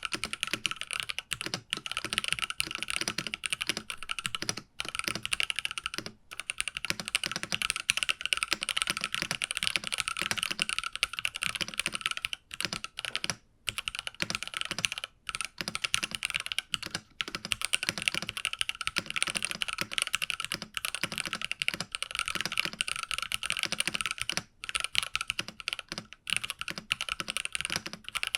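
Fast continuous typing on an IQUNIX F65 mechanical keyboard with TTC Gold Pink switches and Costar stabilisers, a dense stream of key clicks broken by a few short pauses.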